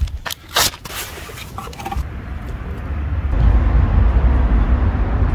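Wind buffeting the microphone: a low rumble with hiss that grows louder about halfway through, after two short sharp clicks in the first second.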